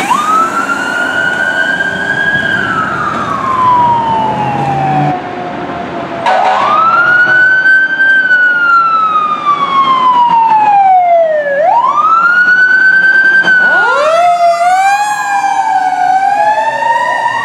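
Emergency vehicle sirens passing. First an emergency-management response truck's siren wails up and down. About six seconds in, after a cut, a fire department ladder truck's siren wails in long slow rises and falls. Near the end a second siren joins, cycling up and down fast.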